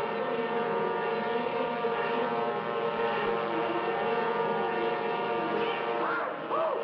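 Cartoon airplane engine sound effect: a steady drone of many held pitches. About six seconds in, a few short swoops rise and fall in pitch over it.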